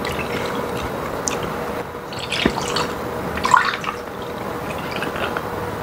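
Soju poured from a glass bottle into a shot glass, then tipped over ice in a tall glass, with a few short glassy knocks about two and a half and three and a half seconds in.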